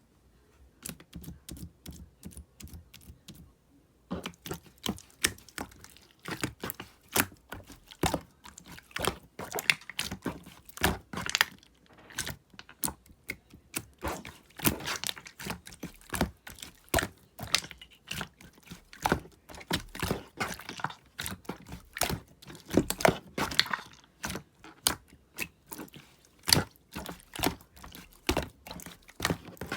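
Purple marbled slime being squeezed and worked by hand, making a dense run of sticky clicks and pops. The clicks are sparse and quieter for the first few seconds, then come thick and fast.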